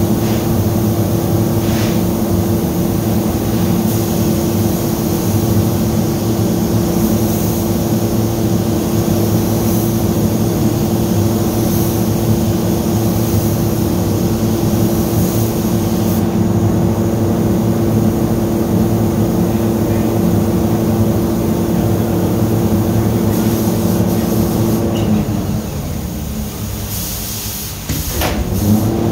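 Steady machine drone with a strong low hum from the spray-finishing equipment, overlaid several times by the hiss of a paint spray gun spraying in short passes. The drone drops away for about two seconds near the end, then returns.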